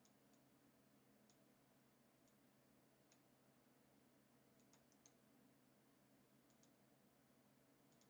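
Near silence with faint computer mouse clicks, a dozen or so scattered irregularly, some in quick pairs, over a faint steady low hum.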